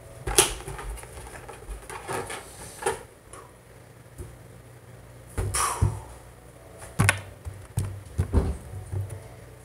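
A few scattered light knocks and bumps, with one brief, louder rustle about five and a half seconds in.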